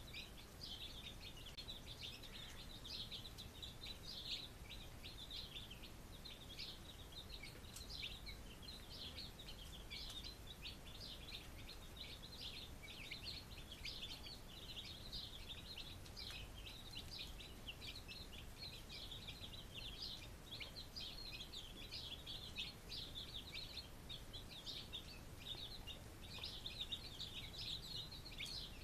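Many small birds chirping at once: a dense, steady chatter of short high peeps, over a low background rumble.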